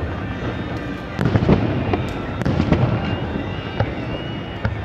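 Aerial fireworks shells bursting in quick succession, a run of booms and sharp cracks. The densest cluster comes about a second and a half in.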